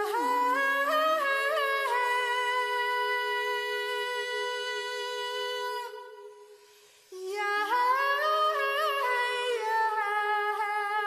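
Wordless vocal music: voices hold long notes in harmony, with small wavering turns on the notes. There are two phrases, with a short break about six seconds in.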